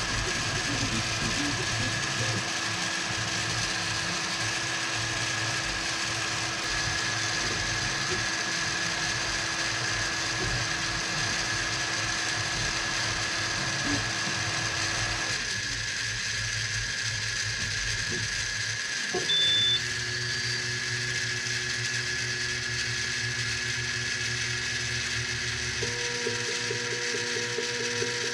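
3D printer running, its stepper motors whirring in steady tones that change pitch and pattern several times as the print head switches moves. A short louder high tone comes about two-thirds of the way through.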